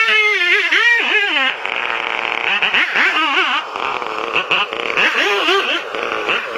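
Chainsaw engine revving up and down over and over, its pitch dipping and climbing every fraction of a second as it works through a tree.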